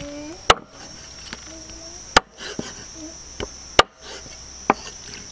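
A blade chopping in four sharp strokes about one and a half seconds apart, the last one lighter, over the steady high drone of insects.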